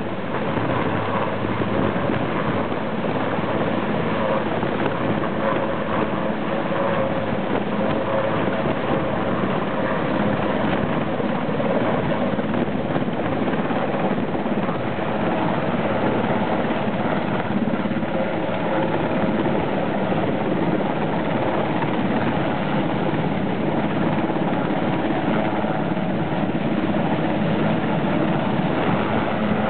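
Sikorsky S-61 helicopter's twin turbine engines and main rotor running at high power as it lifts off from the pad and climbs away, a steady, loud, continuous din with several held tones.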